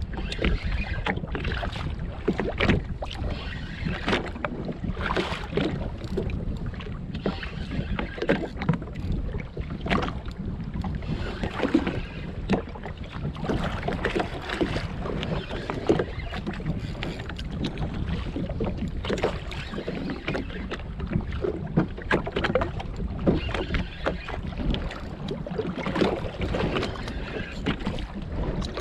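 Sea chop slapping irregularly against the hull of a drifting Sea-Doo GTX jetski, with wind buffeting the microphone.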